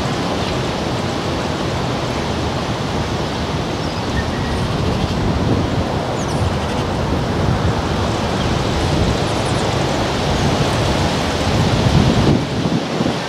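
Wind buffeting the microphone: a steady rushing noise with irregular low rumbling gusts, a stronger gust near the end.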